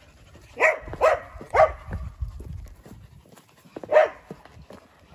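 A dog barking: three quick barks about half a second apart, then a single bark a few seconds later.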